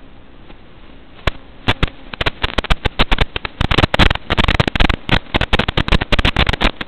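Crackling, popping static from an analog FPV video receiver's audio channel. It starts about a second in as scattered pops, thickens into dense crackle, and stops just before the end, over a steady faint hiss. It is the sign of the drone's analog video link breaking up.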